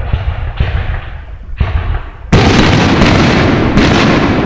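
Aerial firework shells bursting overhead, about five loud booms in quick succession, each trailing off in a rumbling echo; the loudest comes about halfway through.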